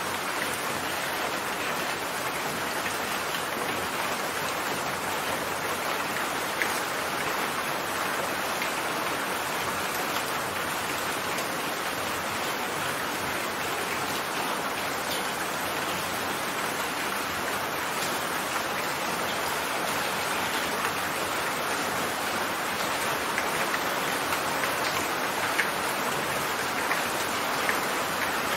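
Steady rain falling: an even hiss of rain with scattered louder single drop ticks.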